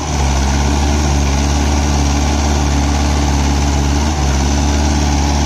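Mahindra 575 DI XP Plus tractor's four-cylinder diesel engine running steadily while pulling a cultivator through the soil under load.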